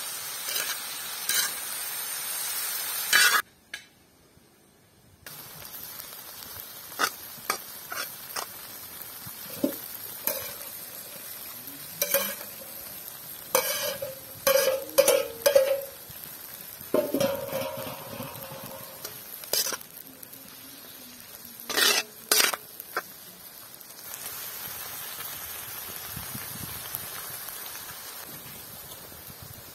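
Mushrooms and bell peppers sizzling on a large iron griddle pan over a wood fire, with a metal skimmer scraping and clinking against the pan in short knocks. Midway, a metal lid rattles and rings as it is lifted off the food.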